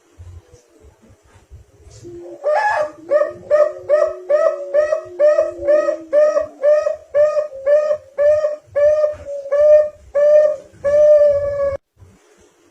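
Zebra dove (perkutut) cooing: a long regular run of short, even notes, about two and a half a second, ending in a longer held note.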